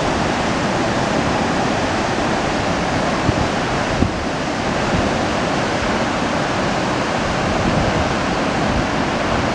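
Steady rush of a 200-metre waterfall crashing onto rocks into its plunge pool, a constant wash of water noise, with some wind buffeting the microphone.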